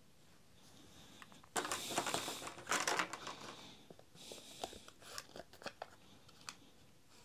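Packaging being handled: a cardboard backing card and plastic blister rustling and crinkling, loudest for a second and a half from about one and a half seconds in, then scattered light clicks and rustles.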